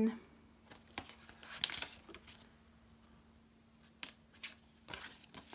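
Light handling noise of a clear plastic cash envelope and UK polymer banknotes: soft rustling and crinkling as notes are slid out and counted, with a couple of sharp ticks, about a second in and about four seconds in.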